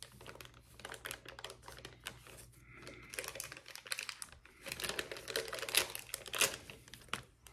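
Steel surgical instruments being handled: irregular light metallic clicks and clatter, busier in the second half, over a steady low hum.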